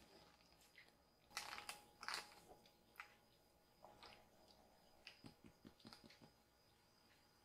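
Young kitten licking and gnawing at a chair leg's plastic foot: faint wet smacks and small clicks, with a quick run of them about five seconds in.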